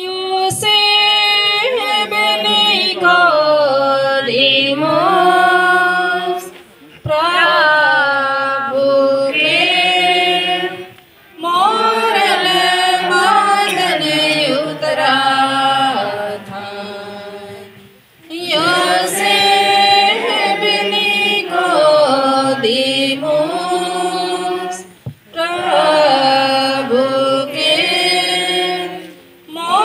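Voices singing a devotional hymn in long held phrases, with short breaks between phrases every five to seven seconds.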